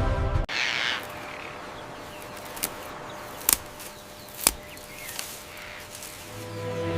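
Wild birds calling over a faint outdoor background, broken by three sharp clicks. A short rushing noise comes about half a second in, and music swells back in near the end.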